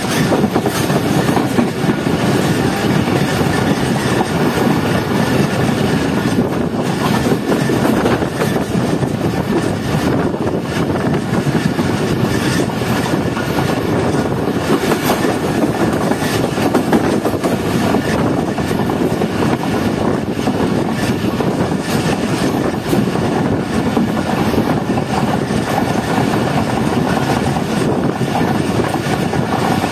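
Passenger train running on the rails while picking up speed, heard from an open coach window: a steady rush of wheel and wind noise with the clickety-clack of wheels over rail joints.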